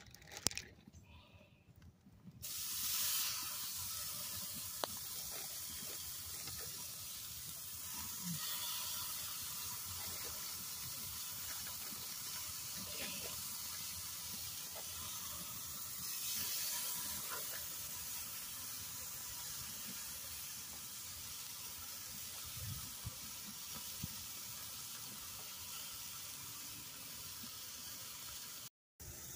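Steaks sizzling on the grate of a charcoal grill over open flames: a steady hiss that starts about two and a half seconds in.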